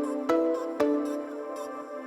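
Background music: an electronic track with clear pitched notes struck in a steady beat.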